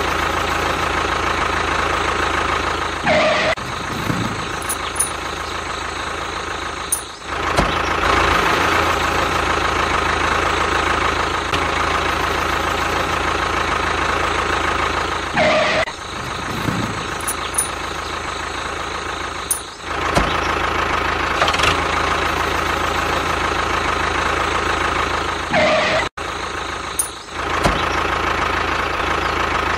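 Tractor engine running steadily, with a few brief dips in level.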